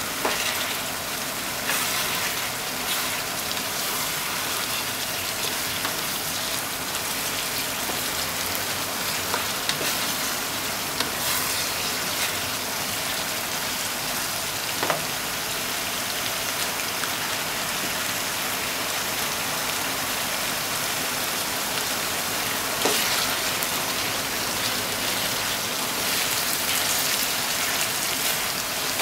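Minced pork and eggplant sizzling steadily in a frying pan as they are stir-fried, with a few sharp knocks of the spatula against the pan.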